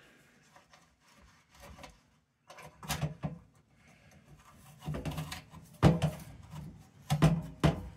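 Parts of an old metal lantern being handled: scattered clicks and knocks with some scraping, the loudest a few sharp knocks in the second half.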